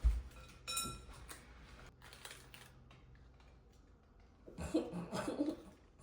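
Kitchen utensils and dishes being handled: a dull bump, then a utensil clinking against a bowl with a short ring just under a second in, followed by faint scraping and handling noises.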